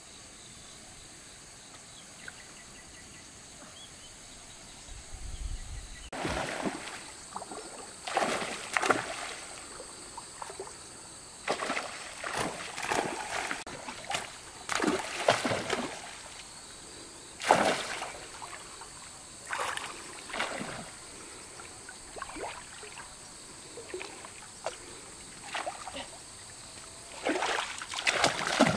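Water splashing and sloshing in irregular bursts, starting about six seconds in after a quiet stretch.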